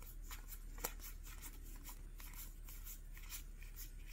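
Magic: The Gathering cards being flipped through by hand: a quick, faint run of soft card slides and flicks, about three or four a second.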